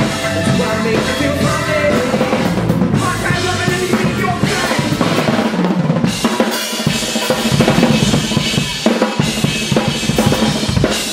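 Live band playing: a drum kit with kick and snare driving the beat under a horn section of saxophones and trumpet, with electric guitar and bass.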